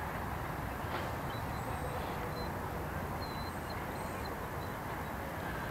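Steady low outdoor background rumble, with a few faint, short, high bird chirps scattered through the middle.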